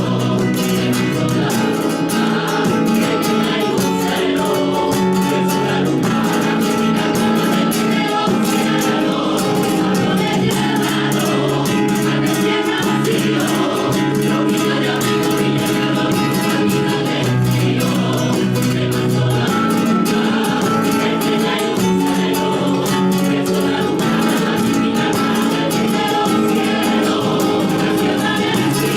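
Christmas carol music with singing voices, a choir sound, and guitar.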